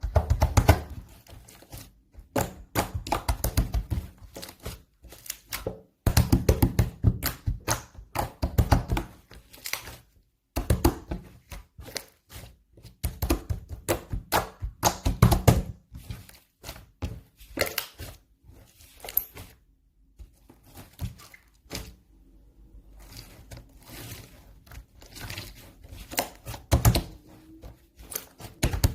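Slime being squished and pressed by hand in quick clusters of crackling pops and soft thuds, with short pauses between handfuls.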